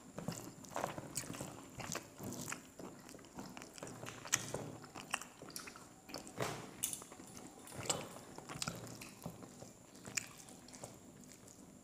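Close-miked eating sounds as rice and chicken curry are eaten by hand: wet squishing of fingers mixing the rice with the curry, and chewing and lip smacks, coming as irregular sharp clicks and smacks.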